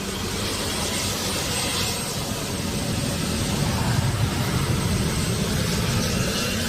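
Jet aircraft engines running with a steady, dense rush of noise that swells a little around the middle, likely the A-10 Warthog's twin turbofans as it flies.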